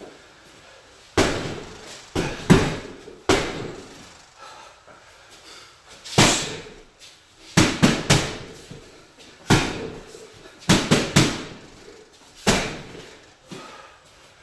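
Boxing gloves punching a wall-mounted heavy bag: loud, sharp thuds at irregular intervals, some single punches and some quick combinations of two to four in a row.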